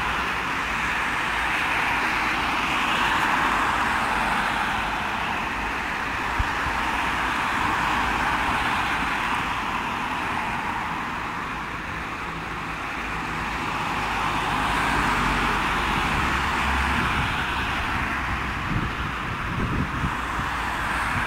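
Road traffic on a multi-lane road: a steady hiss of tyre and engine noise that swells and fades as vehicles go by.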